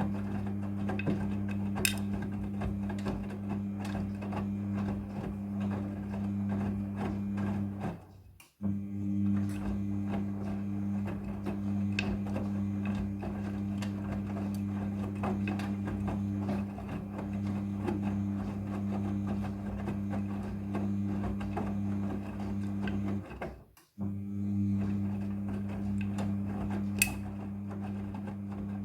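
Midea front-loading washing machine running a wash cycle: a steady motor hum with scattered light clicks and knocks from the tumbling load. The hum cuts out abruptly twice, about eight and twenty-four seconds in, and comes straight back.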